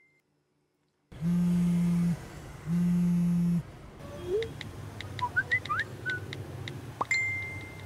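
Two long, low, steady buzzes of about a second each. Then a busy street-stall background with light clinks, a few short rising chirps and a bright ringing ding near the end.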